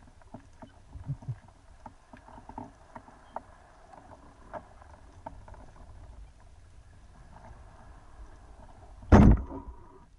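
Band-powered speargun fired underwater: a single loud thump about nine seconds in, followed by a short ringing. Before the shot there are faint scattered clicks and crackles in the water.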